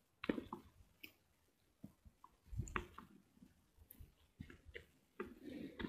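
Faint, scattered clicks, taps and rustles of dry grass as a baitcasting rod is laid down and a freshly landed snakehead is handled on the bank, with a few soft knocks about halfway through.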